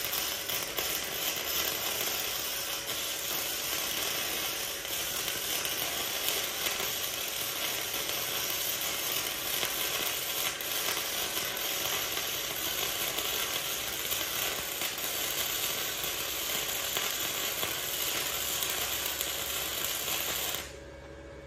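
Flux-core wire-feed welder arc crackling steadily for about twenty seconds as a weld is run, starting suddenly and cutting off abruptly when the trigger is released.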